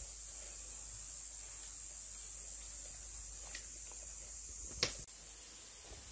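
Steady high-pitched hiss of an insect chorus, with faint rustling of leaves as small fish and leaf strips are handled, and one sharp click just before the five-second mark.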